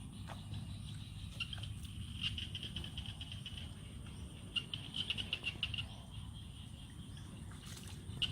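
Outdoor nature ambience: a low steady rumble with several short bursts of rapid, high chirping.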